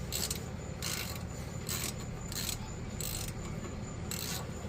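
Socket ratchet backing out a rear brake caliper bolt: a series of short ratcheting bursts spaced about half a second to a second apart, over a steady low hum.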